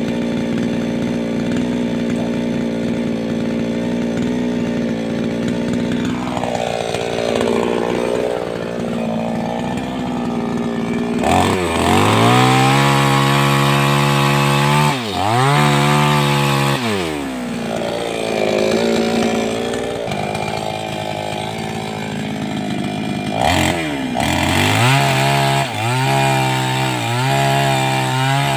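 Two-stroke 588X chainsaw running, steady at first, then revving up sharply about eleven seconds in and dropping back and climbing again several times.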